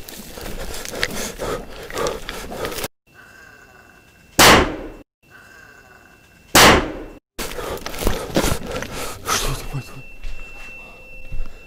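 Two loud, sharp bangs about two seconds apart, each with a short ringing tail. Before and after them come steady crunching and rustling, like someone moving on foot through brush and debris.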